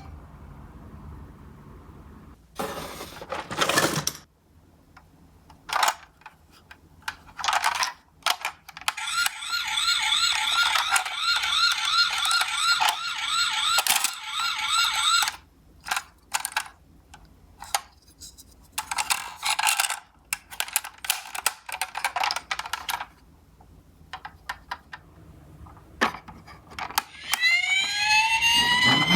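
Toy ambulance minicars clicking and knocking as they are handled and run, with a fast-warbling electronic toy siren for several seconds in the middle. A rising wail siren starts just before the end.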